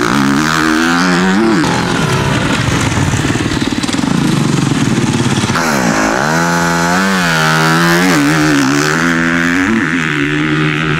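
Motocross bike engine revving hard as it is ridden round a dirt track, its pitch rising and falling with the throttle. About six seconds in the revs drop sharply and then climb again.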